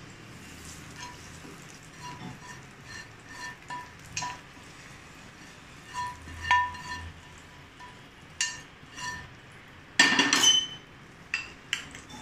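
Steel spoon scraping and tapping against a small steel pan and a ceramic bowl, a run of light metallic clinks as chilli-garlic oil is scraped out of the pan into curd. There is a louder clatter about ten seconds in.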